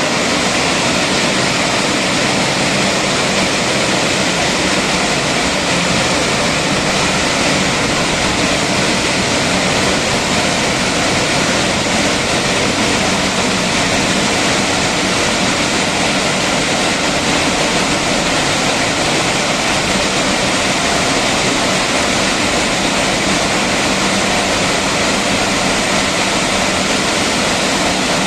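Ambulance disinfecting and washing machine spraying through its jets: a loud, steady rush of spray with a faint machine hum underneath.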